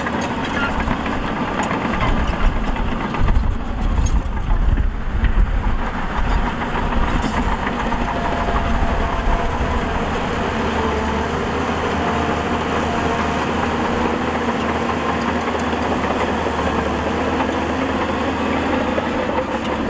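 Heavy earthmoving machine's diesel engine running, surging louder several times in the first few seconds, then settling into a steady run.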